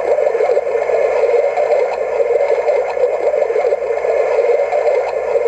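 Sonnet 'Soothing Sound' clock radio playing its brook nature sound through its small built-in speaker: a steady, babbling-water noise, strongest in the middle and thin in the bass.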